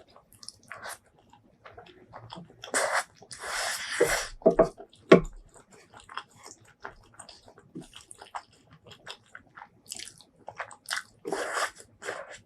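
Close-miked eating: crunchy bites and wet chewing in an irregular run of clicks and crackles, with a few longer, louder noisy stretches and a couple of sharp bites about five seconds in.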